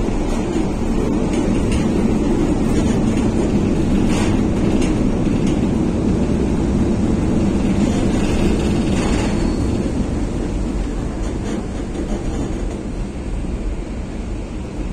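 A 1963 PaFaWag EN57 electric multiple unit running, heard inside the passenger saloon: a steady low rumble of wheels and running gear, with a few faint knocks. The rumble eases off slightly near the end.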